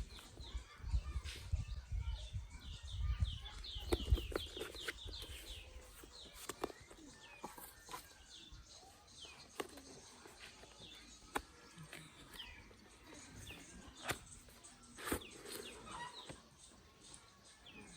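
Birds chirping in short, quick calls, with scattered sharp clicks and taps and a low rumble during the first four seconds.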